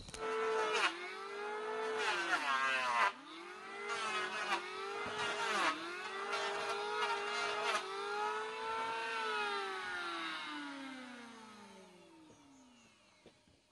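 Electric power tool motor running at speed, its pitch dipping briefly a few times as it is loaded into the work. It is then switched off and winds down in a long falling whine over about five seconds.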